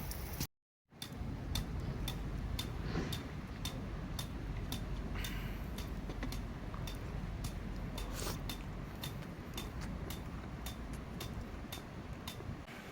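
Even, regular ticking, about three ticks a second, over a steady low background noise.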